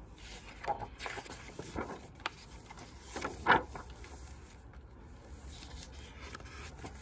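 A few soft rustles and scrapes of paper, the loudest about three and a half seconds in: a picture book's pages being handled and turned.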